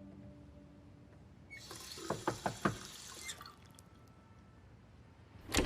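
Knocking on a door: four quick raps over a brief hiss of running water or similar noise, then one louder thump near the end.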